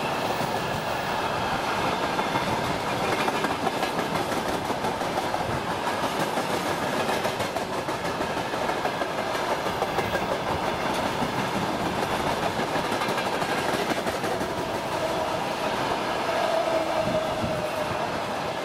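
Freight train of railway tank cars rolling past close by: a steady rumble with the clickety-clack of the wheels over the rail joints. A faint, short, high tone rises above the rumble near the end.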